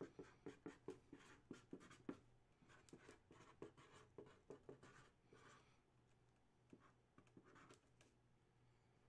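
Marker pen writing on a clear plastic display case: a faint run of short, quick strokes for about five seconds, then a few scattered strokes.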